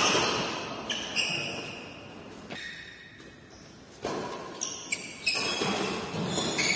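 Badminton rackets striking the shuttlecock during a doubles rally: sharp smacks that echo in a large hall, a couple near the start, a quieter lull in the middle, then a quick run of hits from about four seconds in.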